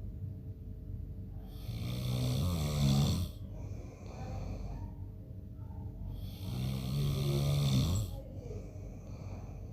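A man snoring: two long snores about four and a half seconds apart, each lasting a little under two seconds.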